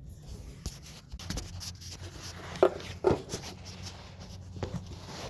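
Hands working a rubber fuel breather hose onto its port fitting: scraping and rubbing with a few sharp knocks, the loudest about two and a half and three seconds in, over a steady low hum.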